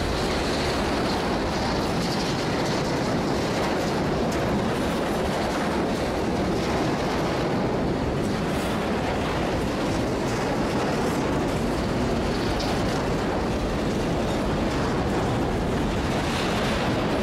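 Freight train hauled by diesel locomotives rolling along the track: a steady rumble of wheels on rail with a few faint clicks.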